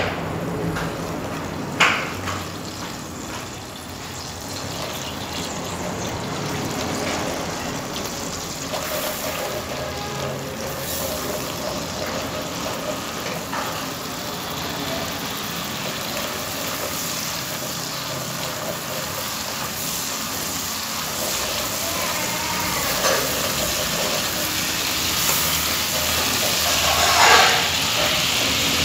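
Steady hissing of food cooking in a pot, with a couple of sharp clinks near the start and a louder scraping swell near the end.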